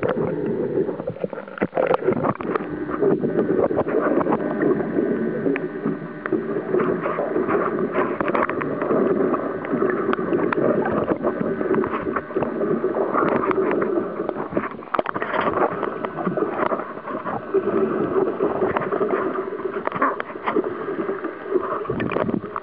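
Fishing boat on the water: a steady mechanical drone runs throughout, with water sounds and frequent sharp knocks and clatter on deck.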